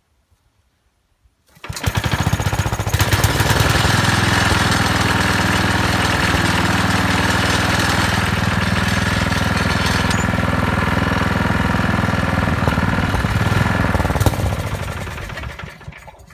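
Tecumseh HH120 single-cylinder engine of a 1968 Sears Suburban 12 garden tractor catching about a second and a half in, running steadily for about twelve seconds, then dying out near the end. The owner suspects the fuel tank running low, after judging that the carburettor needs adjusting.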